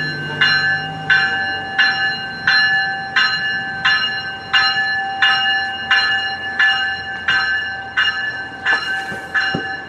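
A train's warning bell ringing steadily, about three strokes every two seconds, coming a little faster near the end. A low hum fades out in the first second.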